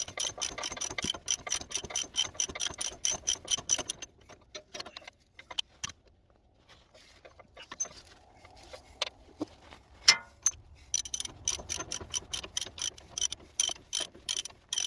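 Hand ratchet clicking in quick, even runs as it tightens a nylon lock nut on a truck's engine mount bolt. The clicking stops for several seconds in the middle, with one sharper clack, then starts again.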